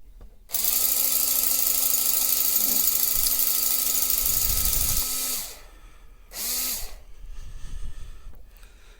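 Old electric power tool, converted to run on a lithium-ion battery, with its motor running with a steady whine for about five seconds. It spins up at the start and winds down at the end, then runs again in one short burst.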